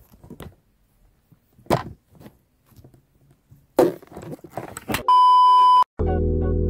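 Knocks and rustles of a camera being handled and repositioned, then a loud, steady electronic beep lasting just under a second. Background music starts just before the end.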